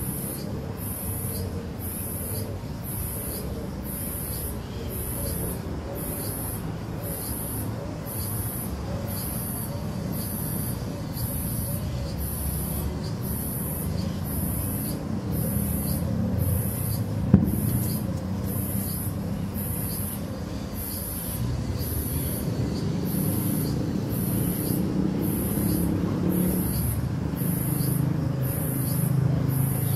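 Outdoor ambience of steady street-traffic rumble that swells at times, with a high, evenly repeating pulse about once a second and faint chirps above it. There is a single sharp click about halfway through.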